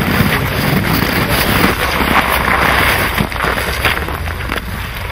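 Wind buffeting the microphone over scraping, crunching and rustling as a long-handled scoop net lifts crucian carp out of the seine net and tips them onto snow-covered ice.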